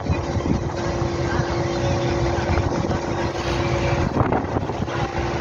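Passenger tour boat's engine running steadily underway: a low rumble with a steady hum, with wind on the microphone.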